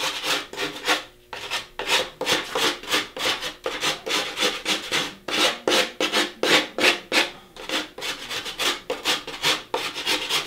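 Surform rasp shaving the moulding seams off a foam deer-head mannequin: quick scraping strokes, about three a second, with a short break about a second in.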